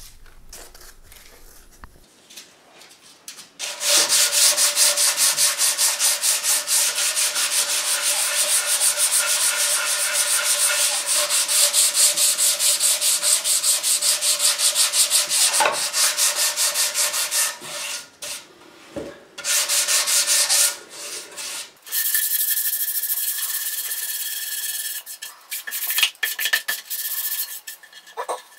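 Sandpaper on a hand block rubbing back dried white grain filler on a wooden guitar body: fast back-and-forth sanding strokes that start a few seconds in, break off briefly a little past halfway, then resume with a smoother rubbing sound.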